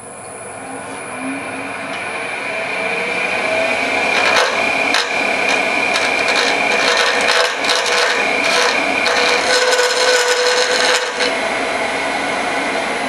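Lathe running while a carbide cutting tool scrapes down a brass compression nut spinning on it: a steady high whine with scratchy chatter, strongest from about four seconds in until about eleven seconds in.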